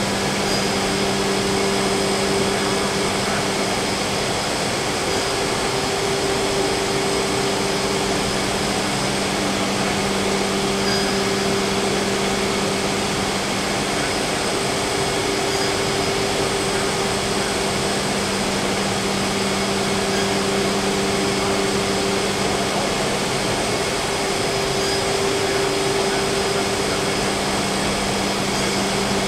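Freedom Machine Tool Patriot CNC router machining a panel: a steady loud whir of the spindle and dust extraction, over a low hum, with a higher tone that comes and goes every few seconds.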